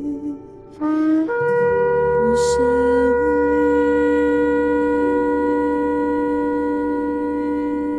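Several shofars (ram's horns) blown together: a short blast rising in pitch about a second in, then long held notes at different pitches overlapping.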